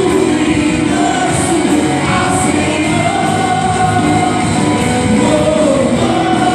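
Contemporary Christian worship song: a singer's held melodic lines over a full rock-style band with drums and cymbals.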